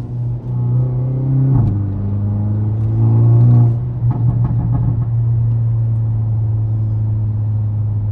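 Hyundai Elantra N's turbocharged 2.0-litre four-cylinder running with its resonator deleted: a deep, steady exhaust drone that the owner calls more aggressive. The revs drop a little about a second and a half in, then swell briefly around three seconds in.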